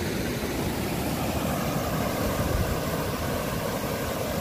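Water rushing down a concrete spillway chute and churning into whitewater at its foot: a steady, even rush with no let-up.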